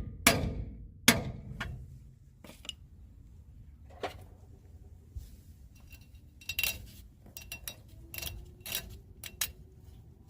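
Metal-on-metal clanks and clinks as tools and drum-brake parts are handled: a couple of sharp, ringing knocks in the first second or so, then scattered lighter clinks.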